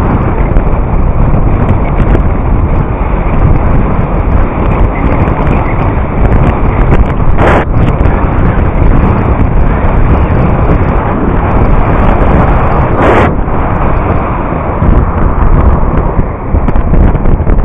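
Heavy wind buffeting the microphone of a camera riding on a moving mountain bike, a loud, steady, low rumble. Two sharp knocks stand out, one about halfway through and another about five seconds later.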